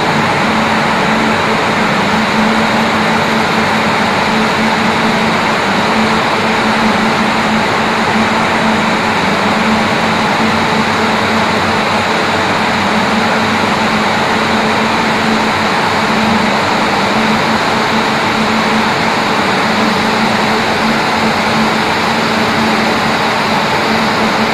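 Spinning frames in a spinning mill running, with rows of spindles turning yarn bobbins: a loud, unbroken machine din with a steady low hum and a faint high whine.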